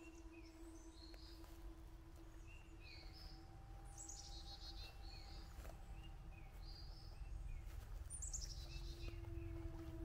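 Wild birds singing faintly: a high, falling run of notes repeats about every four and a half seconds, with short chirps in between. Under it is a steady low hum and a low rumble that grows louder near the end.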